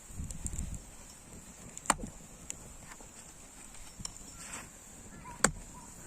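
Two sharp knocks about three and a half seconds apart, with a brief low rumble at the start.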